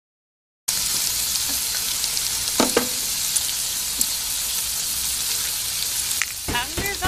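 Slices of meat sizzling in a frying pan: a steady hiss of hot fat that starts abruptly about half a second in, with a few faint pops.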